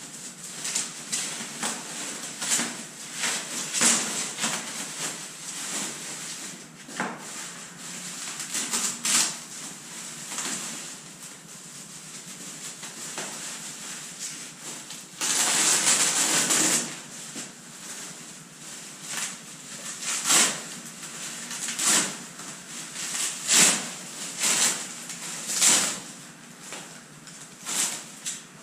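Clear plastic protective wrapping crinkling and rustling as it is handled and pulled off a bicycle frame, in many short crackles. About halfway through there is a longer, louder rustle lasting a second or two.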